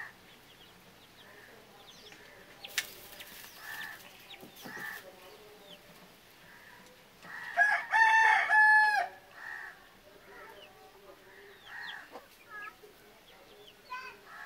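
A rooster crowing once, loud, for about two seconds midway, with faint short bird calls around it and a single sharp click about three seconds in.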